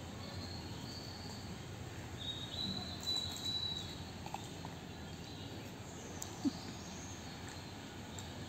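Outdoor woodland ambience: a steady low background rumble with faint, high thin bird calls in the first few seconds, and a brief low bump about six and a half seconds in.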